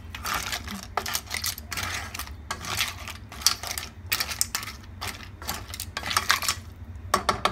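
Clam shells clattering against one another and the metal pot as stir-fried clams and basil are stirred, in irregular bursts of rattling that pause near the end.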